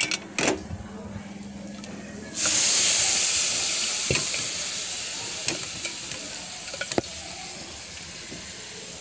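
Boiled chicken and its cooking water poured into a hot pan of ghee-fried masala: a loud sizzle starts suddenly about two seconds in and slowly dies down. A few sharp knocks of the pot and spatula against the pan come before and during it.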